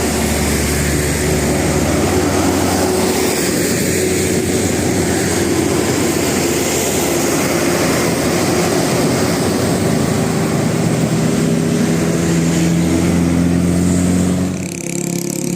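Large bus's diesel engine running close by: a steady, loud drone with road and engine noise, which drops away suddenly about a second before the end.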